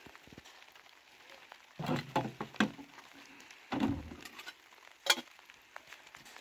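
Handling noises of plastic jerry cans and a small metal kettle: two short clusters of knocks and rattles about two and four seconds in, then one sharp click about five seconds in.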